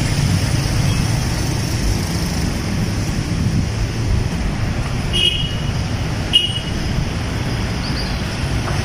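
Steady street traffic noise, a low rumble from passing cars, with two short high-pitched chirps about five and six and a half seconds in.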